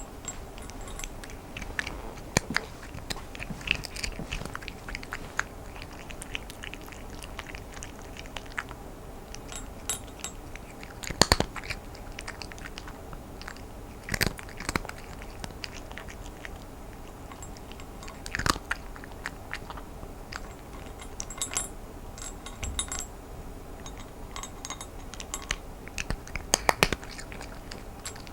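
A domestic cat chewing dry kibble: irregular sharp crunches and clicks, with a few louder bites scattered through.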